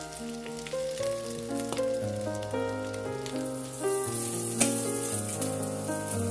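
Tuna-and-egg patties frying in oil in a pan, a steady sizzling hiss, under background music with a melody of sustained notes. There is a sharp tap about halfway through.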